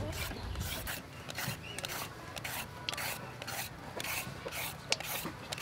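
Julienne peeler shredding a carrot: the serrated blade rasps down the carrot in quick repeated strokes, about two to three a second.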